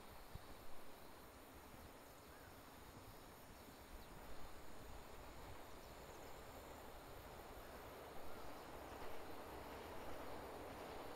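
Faint countryside ambience with a steady high drone of insects and a few soft low bumps; over the last few seconds a rising rumble builds as a train approaches.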